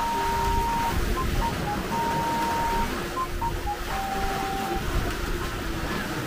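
Background music: a simple, cute melody of clean beeping tones moving note to note, over a steady rushing outdoor noise with low rumble.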